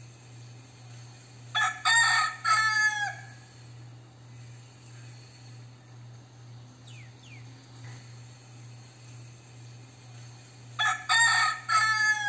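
Crossbred gamecock crowing twice, about two seconds in and again near the end; each crow is a short sharp note followed by two longer notes, the last one trailing down in pitch.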